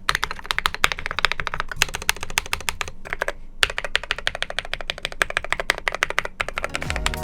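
Fast typing on a custom TM680 mechanical keyboard with AKKO Rose Red linear switches lubed with Krytox 205g0, foam and tape mods, and PBT XDA keycaps: a quick run of key strokes with a brief pause a little past three seconds in. Music comes in just at the end.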